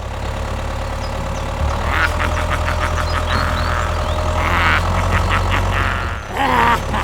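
A vehicle engine running at a steady idle, with bursts of quick rattling clatter about two and five seconds in.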